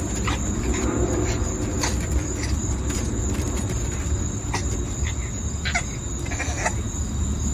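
A bulldog puppy's claws tap and scrape on a wooden deck step as it scrambles to climb up, heard as scattered light clicks. Behind them run a steady outdoor noise and a constant high-pitched whine.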